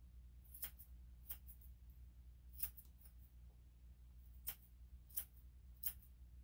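Grooming scissors snipping a long-haired Chihuahua's paw fur: about six short, sharp snips at uneven intervals.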